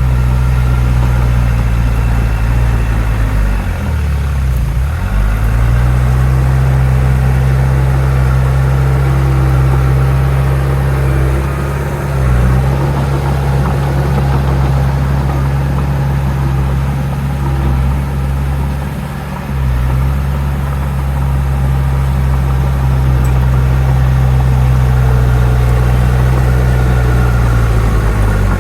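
Heavy diesel engine of earthmoving machinery running in a steady low drone. Its pitch sags briefly and recovers about four seconds in, again around twelve seconds, and once more around twenty seconds.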